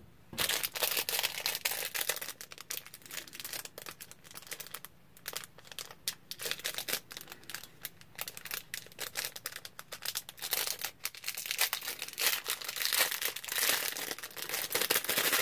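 Small clear plastic bag crinkling as it is handled and opened: a dense run of crackles that thins out about five seconds in and grows louder near the end.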